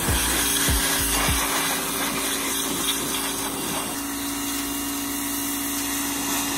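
Electric pressure washer running: its motor and pump hum steadily while the water jet hisses against the cast-metal differential housing.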